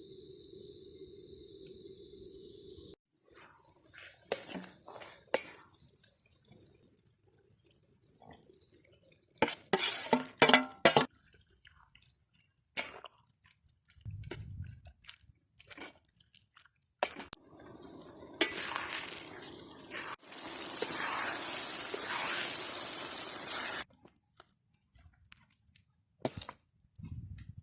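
Water splashing and cookware clinking: scattered knocks and clicks, a cluster of louder clatters about ten seconds in, and a loud stretch of rushing water that starts about eighteen seconds in and stops suddenly near twenty-four seconds. Insects chirp steadily for the first few seconds.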